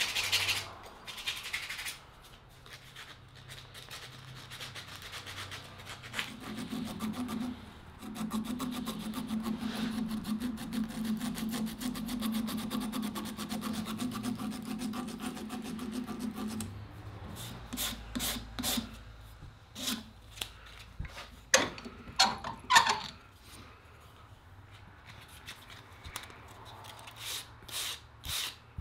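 Rubbing and rasping strokes on the wooden kunai's cabreuva blade as it is worked by hand. A long steady run of fast, even strokes comes in the middle, then separate short scrapes and taps near the end.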